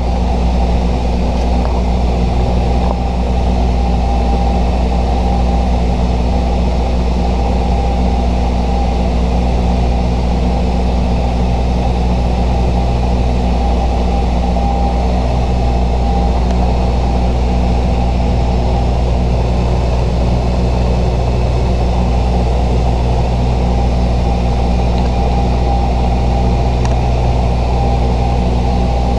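Steady cockpit drone of a Bombardier Dash 8-100 in flight: its twin turboprop engines and propellers running evenly. It is a stack of low hums with a faint higher whine above them.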